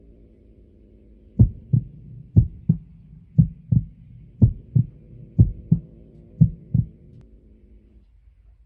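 Heartbeat sound effect: six double 'lub-dub' thumps about a second apart over a steady low drone, which fades out near the end.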